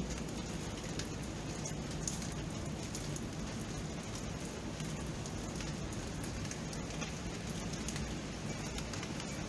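Steady rain falling, with many separate drops ticking and pattering on a surface.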